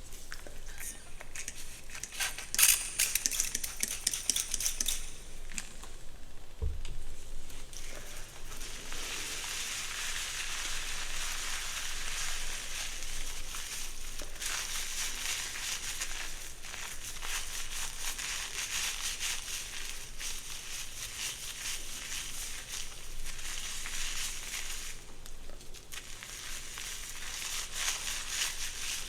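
Hair being worked close to the microphone: a crisp, scratchy rustling that is louder for a couple of seconds early on, then runs on steadily with brief pauses.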